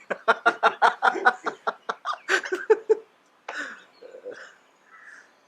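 A man laughing: a quick run of short 'ha-ha' bursts for about three seconds, then a few quieter breathy sounds as the laughter fades out.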